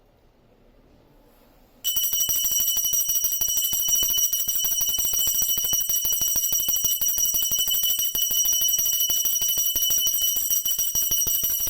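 Puja hand bell rung rapidly and steadily, starting about two seconds in: a fast, continuous jangle of clapper strikes with a high ringing tone.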